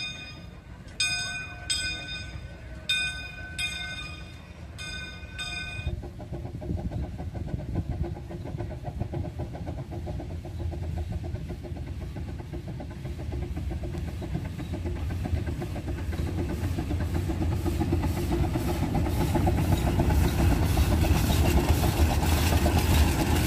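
A steam locomotive's bell rings several strokes, roughly in pairs, over the first six seconds. Then the small 110-year-old steam train rumbles and clatters along the rails, growing steadily louder as it comes alongside.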